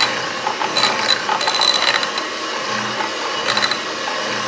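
Electric hand mixer running steadily at speed, its two wire beaters whipping the last egg yolk into a thick cream cheese and butter batter in a glass bowl. A few short rattling clicks come through the motor noise.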